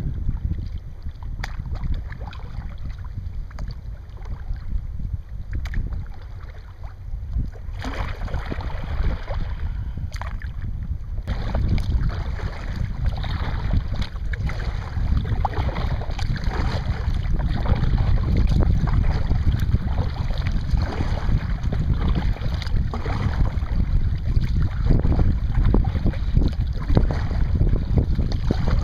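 Wind rumbling on the microphone, with water splashing and washing around a kayak being paddled. The splashing gets louder about eight seconds in and again about three seconds later.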